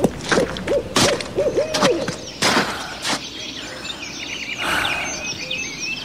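An owl hooting: a quick run of short hoots in the first two seconds, among several loud sharp cracks. From about halfway, small birds chirp in quick high notes.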